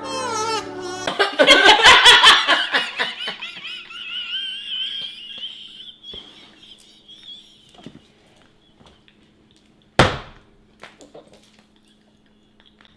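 Women laughing hard and high-pitched, loudest in the first few seconds and dying away after about five seconds. A single sharp hit about ten seconds in.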